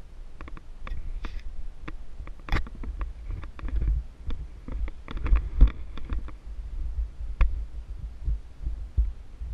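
Handling noise on a small action camera as it is picked up, turned over and set in place: irregular clicks and knocks over uneven low thumps and rubbing, with the loudest knocks about two and a half, five and a half and seven and a half seconds in.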